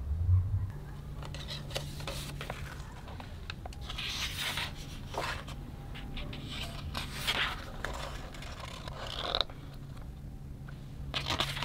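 Hardcover photobook handled and opened, its thick pages turned: paper rustling and sliding in several separate strokes, with a low thump at the very start.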